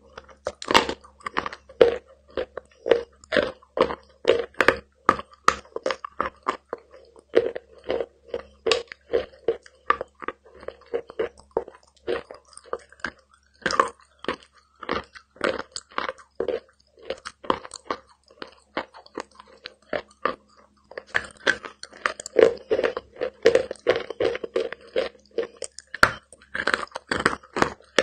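Close-up crunching of moistened edible chalk (Big Love chalk) being bitten and chewed: a long run of sharp, irregular crunches, about two or three a second, coming in quicker clusters near the middle and toward the end.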